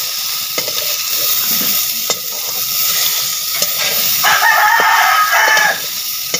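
Fish pieces sizzling in masala in a steel kadai, with a steel spatula scraping and clicking against the pan. About four seconds in, a rooster crows once, a long call and the loudest sound.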